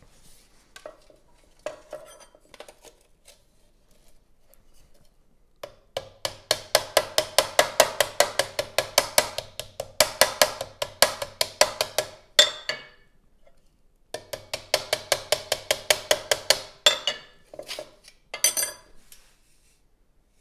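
Hammer tapping a stainless steel trim strip against a flat iron backing bar to straighten out its dents, in two long runs of quick, even strikes, about five a second, with a few single taps before and after.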